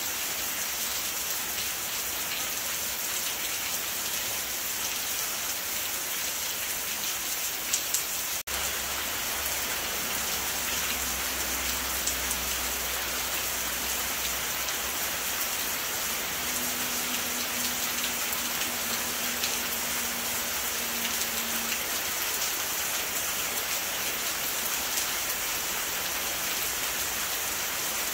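Steady rain falling, an even dense hiss, with a brief break about eight seconds in.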